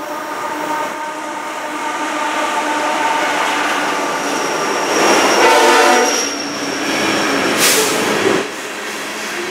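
Union Pacific diesel locomotive approaching and passing close below, its engine growing louder to a peak about halfway through, then dropping off suddenly near the end as the covered hopper cars follow on the rails.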